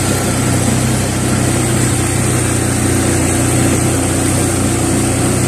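Motorcycle engine running steadily while riding, under a constant hiss of wind and road noise.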